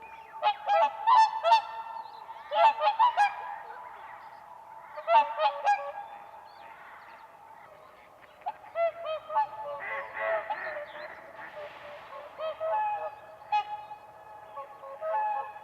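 Whooper swans calling: several birds give loud, trumpeting honks in close clusters over the first few seconds, then softer, more scattered calls through the second half.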